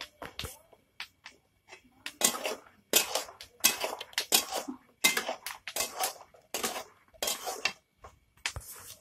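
A cat crunching a crisp fried chip: a run of about ten sharp, crackly bites, roughly one every 0.7 seconds, starting about two seconds in after a few faint clicks.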